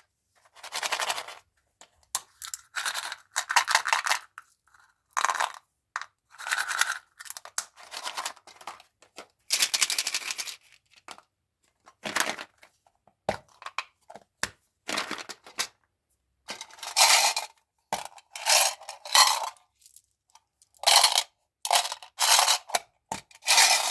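Plastic candy wrappers being crinkled and torn open, in repeated short bursts with brief pauses between them.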